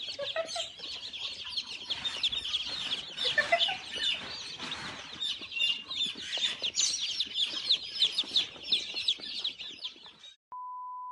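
A crowd of chicks peeping all at once, a dense, continuous chorus of short high chirps. About ten seconds in the peeping stops, and a steady electronic beep tone follows.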